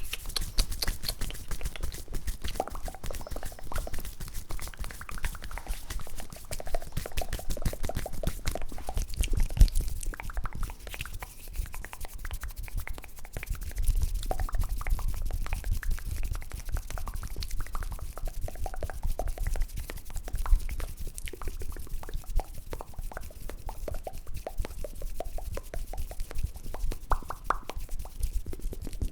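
ASMR mouth sounds close to the microphone: a rapid, continuous stream of wet clicks and pops.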